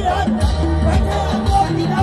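Loud music with a steady beat of about two thumps a second under a melody.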